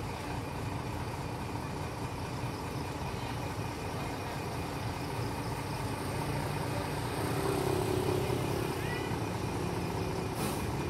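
Sleeper coach bus's diesel engine idling steadily, swelling slightly partway through, with a short hiss near the end.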